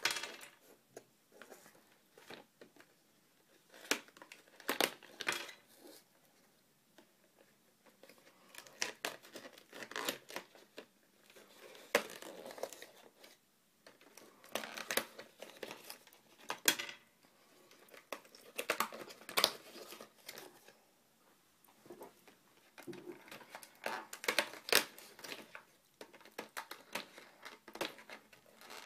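Hands handling toys and crinkly packaging: irregular crinkling, rustling and small clicks, coming in short clusters with brief pauses between them.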